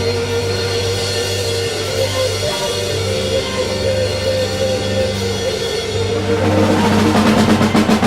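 Live blues band playing: held guitar and bass notes over drums. About six seconds in it gets louder, with quick, even drum hits.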